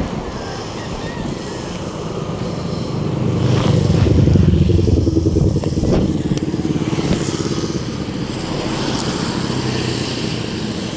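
Road traffic, with a motor vehicle's engine passing close; its hum swells to its loudest about four seconds in, then eases back to a steady traffic rumble.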